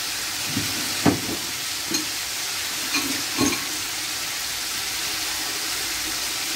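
Chicken pieces frying in a metal wok: a steady sizzling hiss, with a few light knocks about one, two and three and a half seconds in.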